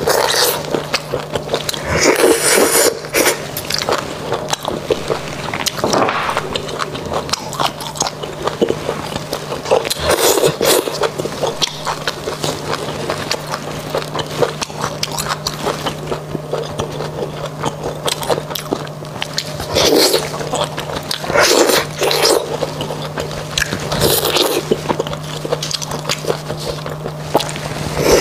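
Close-miked eating of spicy beef bone marrow: wet mouth sounds of biting, sucking and chewing the soft marrow from the bone, with several louder bursts spread through. A faint steady low hum runs underneath.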